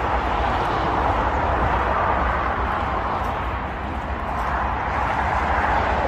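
Steady roar of motorway traffic, mostly tyre noise, dipping a little about four seconds in and building again.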